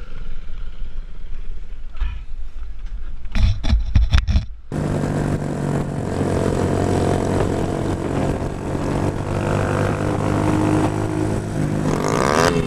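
Motorcycle engine running steadily while riding, heard from a helmet camera with wind and road noise. It is preceded by a few seconds of low rumble and a quick cluster of knocks.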